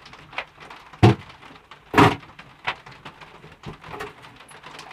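Objects being knocked and set down on a tabletop while it is cleared: two sharp knocks about a second apart, with a few lighter clicks and bumps around them.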